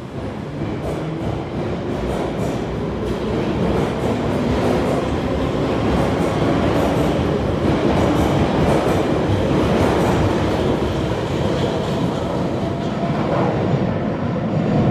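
London Underground 1973 Stock Piccadilly line train pulling out of the platform and accelerating into the tunnel. Its running noise builds over the first few seconds and then holds steady and loud.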